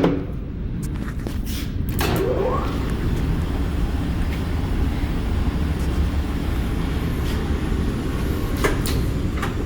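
Hwacheon 17 x 40 gap bed lathe running in low gear: a steady mechanical hum from the spindle and gearbox, with a short rising whine about two seconds in and a few sharp clicks near the start and end.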